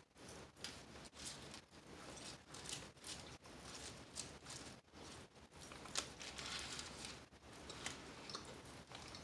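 A person chewing food close to the microphone: irregular soft crunches and wet clicks of mastication.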